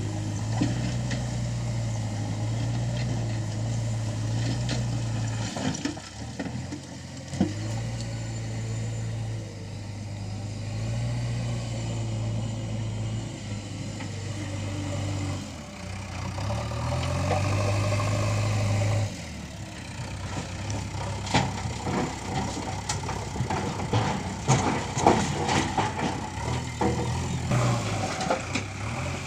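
JCB backhoe loader's diesel engine running at work, its hum rising and falling in steps as the digging load changes. A couple of sharp knocks come about a quarter of the way in, and a run of metal clanks and rattles from the bucket and arm fills the last third.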